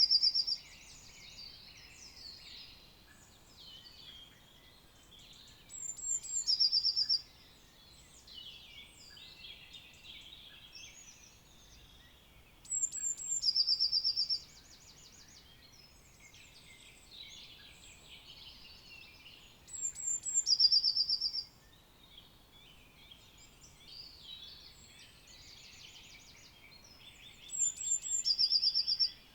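Spring dawn chorus of forest songbirds, many quieter calls and songs overlapping. One nearby bird repeats a loud short song about every seven seconds, a high note followed by a fast trill.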